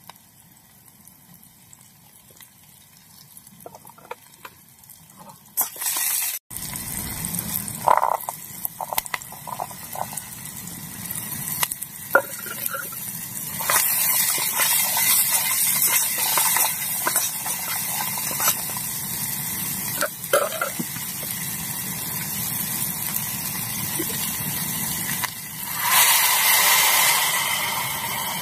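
Onions and spices sizzling in a metal pot on a portable gas stove, with a spatula clicking and scraping against the pot as they are stirred. Near the end, water poured into the hot pot brings a louder rush and hiss.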